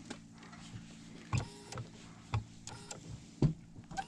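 A crappie being unhooked and handled in a boat: three sharp knocks about a second apart, with short squeaky clicks between them, over a faint steady hum.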